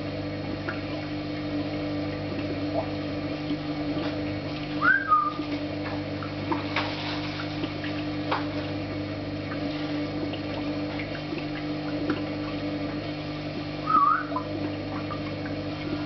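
African grey parrot giving two short whistles, each rising then falling in pitch, about five seconds in and again near the end, over a steady low hum.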